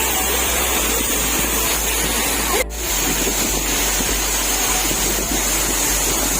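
Waterfall: steady rushing of falling water, with a brief break about two and a half seconds in.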